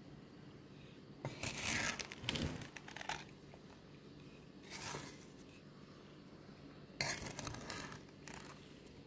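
Wooden spoon stirring sugar-coated mulberries in a pot: gritty scraping and crunching of sugar granules in four bouts, the longest starting about a second in.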